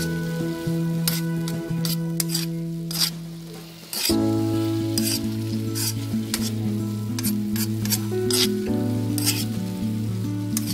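Stir-fry sizzling in a hot pan while it is stirred, with short, irregular scrapes of the spatula. Background music with held notes plays underneath.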